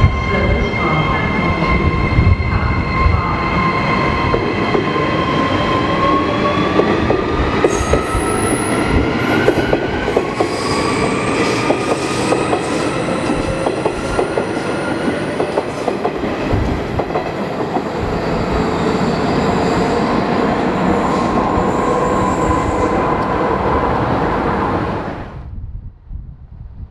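Transperth electric passenger train running past on the rails, a dense steady rumble with several high whining tones, some rising in pitch about six to ten seconds in. The sound drops away abruptly near the end.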